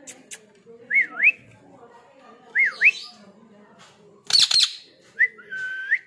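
Ring-necked parakeet whistling: a short dip-and-rise whistle phrase twice, a harsh squawk about four seconds in, then a whistle that rises into a held note near the end.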